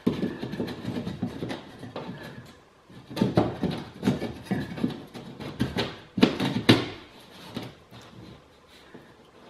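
Plasterboard patch scraping and knocking against the cut edges of a hole in a plasterboard wall as it is pushed and worked into place. The scrapes and knocks come in uneven runs, loudest about six to seven seconds in, and die away near the end.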